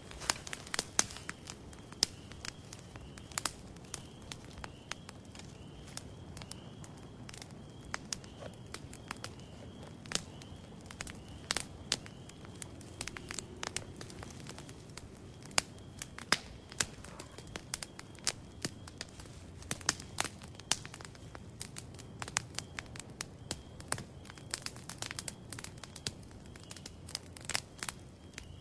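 Campfire of sticks burning, crackling with many irregular sharp pops over a low, steady rush of flames.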